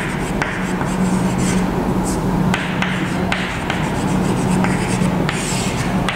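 Chalk writing on a chalkboard: short scratching strokes and taps at irregular intervals, over a steady low hum.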